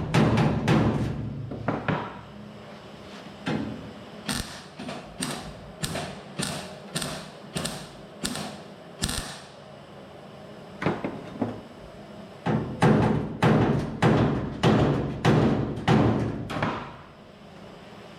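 Repeated hammer blows on sheet metal, about two a second, in two runs separated by a pause of a few seconds, each blow ringing briefly.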